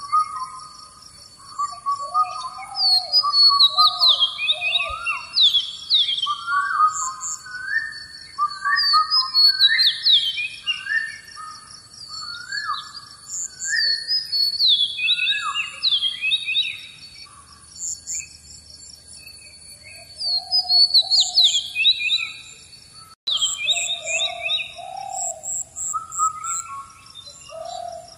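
Birdsong: phrases of clear whistled chirps, many sweeping down in pitch, repeated every few seconds with short pauses between them.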